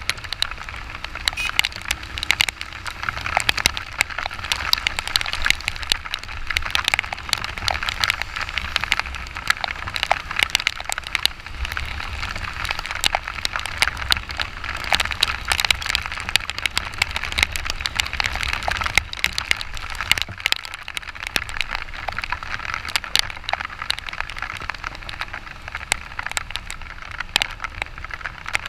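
Heavy rain: a dense, continuous crackle of raindrops striking close to the microphone on a moving motorcycle, over a steady low rumble.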